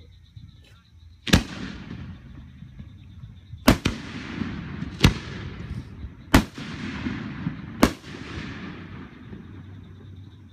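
Aerial firework shells bursting: five sharp booms spaced about one and a half to two and a half seconds apart, the second one a quick double crack, each trailing off in a rumbling echo.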